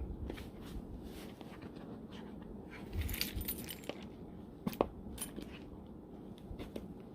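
Packaging being handled and opened by hand: scattered small clicks and taps, a brief rustle about three seconds in, and two sharp clicks a little later.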